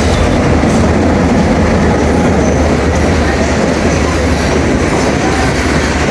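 Train running on the rails: a loud, steady low rumble with rail noise.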